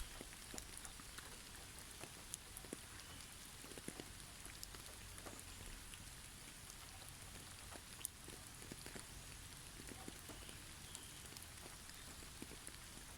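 Faint pattering of heavy snowfall on snow-covered trees: many small, irregular ticks over a steady soft hiss.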